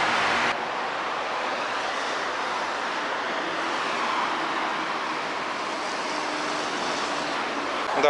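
Steady road-traffic noise: a continuous wash of tyres and engines from passing vehicles.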